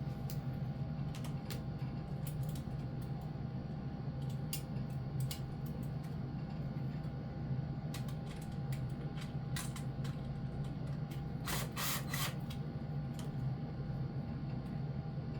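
Scattered small clicks and taps of hands working wire and small tools, with a quick run of clicks about three-quarters of the way through, over a steady low hum.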